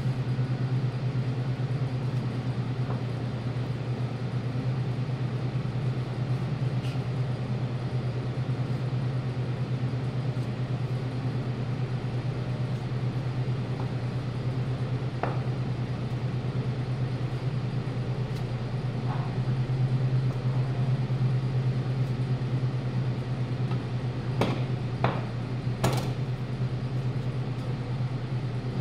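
A steady low machine hum, with a few sharp taps late on.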